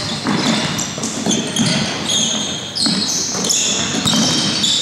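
Basketball game play on an indoor court: a ball bouncing on the floor while sneakers squeak repeatedly in short high chirps, all ringing in a large hall.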